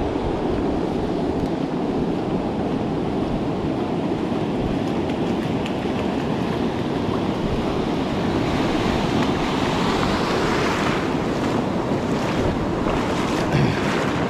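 Ocean surf breaking and washing up the beach, with wind buffeting the microphone. The hiss of the wash builds louder past the middle.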